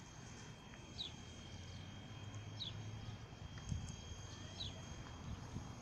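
A small bird giving a short, falling chirp four times, about every one and a half to two seconds, over a faint low rumble.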